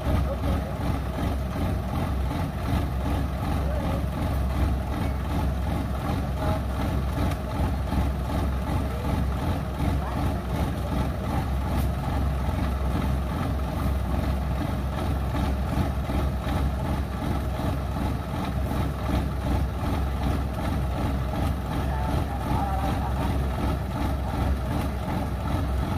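Diesel engine of the mud-bogged rice-harvesting machinery idling steadily, with no rise or fall in speed.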